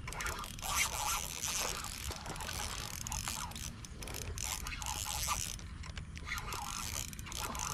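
Spinning reel on an ultralight rod working against a hooked fish: a continuous run of mechanical clicking and whirring from its gears and ratchet.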